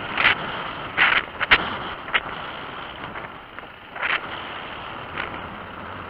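Adventure motorcycle riding over a rocky dirt trail, with a steady rush of wind on the microphone. Several short scrapes and knocks come through, with one sharp knock about a second and a half in.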